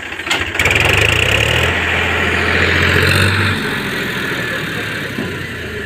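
Tractor's diesel engine running loud, with a deep rumble that eases a little past halfway.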